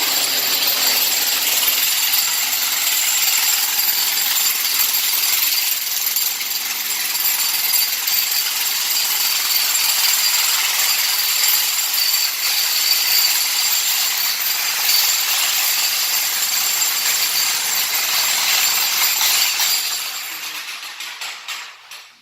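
Loud power tool running steadily as a trench is dug through the floor to reroute plumbing; it fades away near the end.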